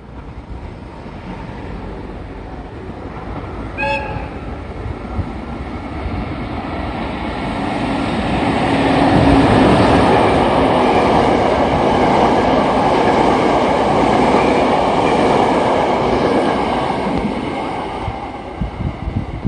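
A locomotive-hauled train passing: a short horn blast about four seconds in, then the rumble and wheel noise of the train grow louder, hold for several seconds as it goes by, and fade near the end.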